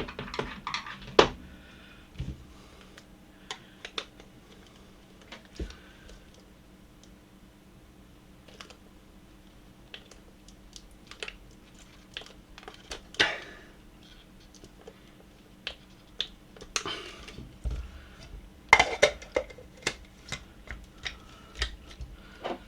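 Scattered light clicks and knocks of hand tools and small coffee grinder parts being handled and worked on a bench. The sounds are sparse through the middle, with a brief cluster of clatter about thirteen seconds in and a louder run of it near the end.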